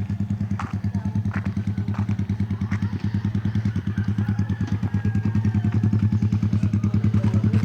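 Small engine idling steadily with a fast, even pulse, growing a little louder toward the end, with a few faint clicks over it.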